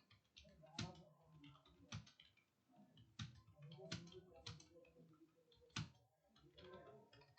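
Faint computer keyboard typing: separate keystroke clicks at an irregular pace, some sharper than others, with faint voices underneath.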